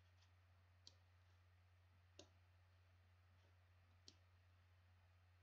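Near silence with a low steady hum and three faint clicks, one about a second in, one after about two seconds and one after about four seconds: computer mouse clicks.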